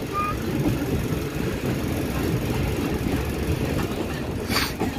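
Passenger train running along the track, heard from inside the coach at the window: a steady low rumble of wheels on rail, with one sharp click about four and a half seconds in.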